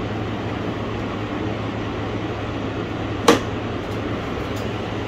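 Portable evaporative air cooler running in cooling mode on fan speed 3: a steady fan rush over a low motor hum. One sharp click a little past three seconds in.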